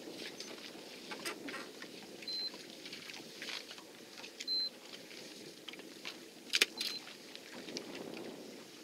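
Baitcasting reel being wound in steadily over the low steady rumble of the boat and sea, with scattered light clicks, a sharp knock about six and a half seconds in, and a few brief high-pitched tones.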